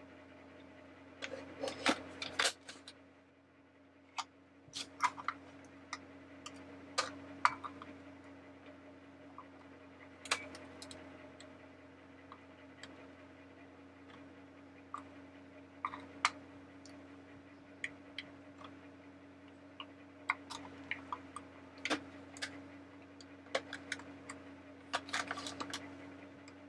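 Irregular clicks and taps of hard plastic parts being handled and pressed together as the gear housing in the base of an animated Mr. Christmas teacup is worked back into place, over a faint steady hum.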